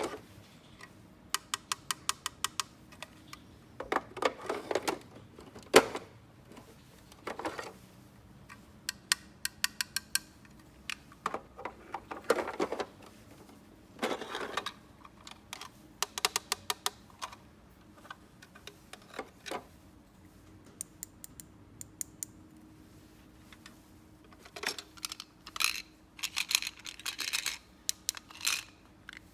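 Small plastic toys and their packaging handled close up: runs of quick light clicks, several a second, between short bursts of rustling.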